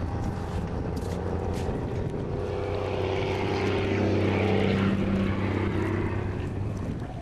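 A motor drones past, growing louder toward the middle and fading away again.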